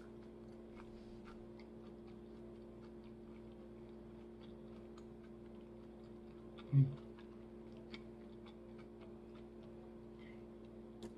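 Quiet chewing of salad: faint, scattered crisp mouth clicks over a steady low hum, with one short, loud, low throat sound about seven seconds in.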